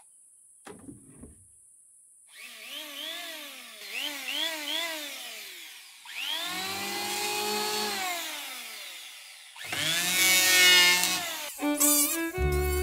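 A power tool's motor whining in several runs, its pitch rising and falling as it speeds up and slows down, after a single knock about a second in. Music comes in near the end.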